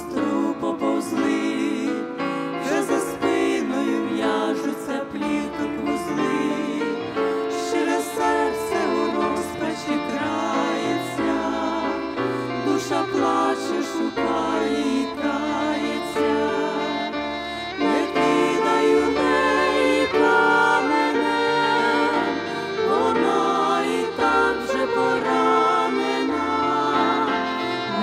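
Women's vocal trio singing a Ukrainian Christian song in harmony, with instrumental accompaniment holding bass notes underneath.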